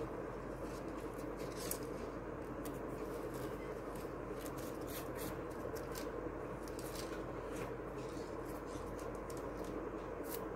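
Crepe paper rustling and crinkling in short scratchy clicks as fingers squeeze and fluff it into a flower around a thin stick, over a steady background hum.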